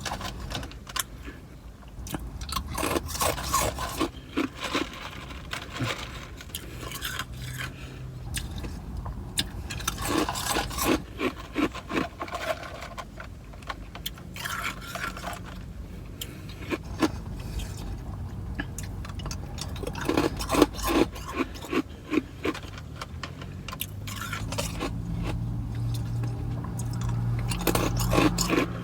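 Ice being crunched between the teeth in bursts of rapid crackling bites, with ice pieces clinking and scraping against each other between bites. A low steady hum comes in near the end.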